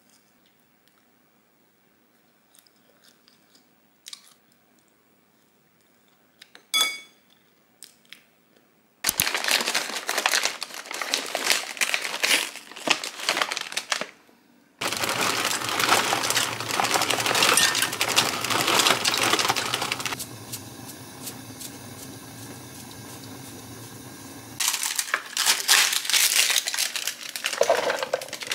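Almost quiet at first with a few small clicks, then loud stretches of packaging crinkling and rustling as a bag of Rummo fusilli pasta is handled. A quieter, steadier sound takes over for a few seconds, and near the end a plastic salad container crinkles as shredded salad is tipped out of it.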